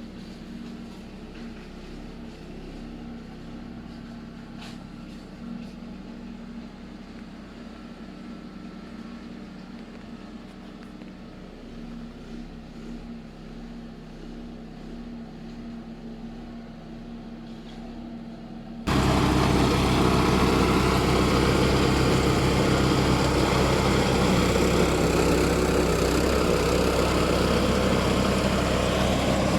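Walk-behind tractor engine running steadily. About two-thirds of the way in, the sound jumps suddenly to a much louder, dense rushing noise over the engine.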